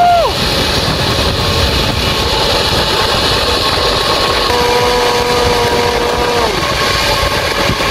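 Steady rushing and rumbling of a zipline ride: wind over the microphone and the trolley running along the cable. About four and a half seconds in, one long held shout lasts about two seconds and drops away at the end.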